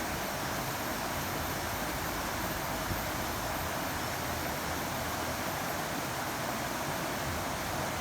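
Steady rushing of water, an even hiss with no change in level.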